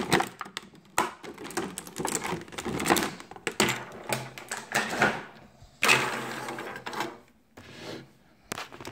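Clear plastic packaging crinkling, with hard plastic toy pieces clicking and knocking as they are pulled free and handled. The clicks come irregularly, and the loudest stretch is about six seconds in.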